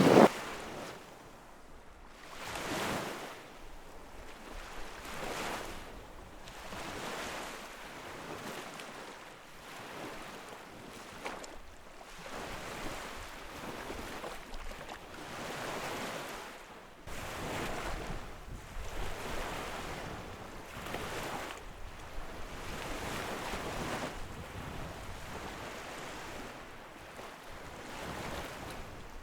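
Small lake waves washing onto the shore, each wash swelling and fading every couple of seconds.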